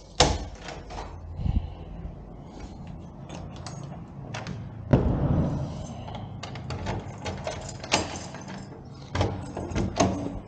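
A motorcycle engine running steadily at low revs, with scattered knocks and clicks over it and a loud thump just after the start and another about halfway through.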